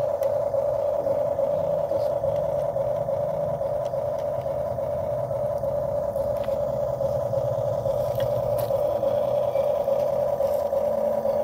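Huina 1:12-scale RC excavator driving on its tracks: a steady electric motor and gearbox whine, with a lower hum that shifts as the tracks work.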